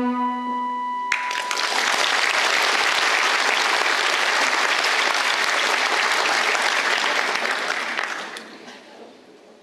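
A held final note of the music ends about a second in, and an audience breaks into applause, which fades out over the last second or so.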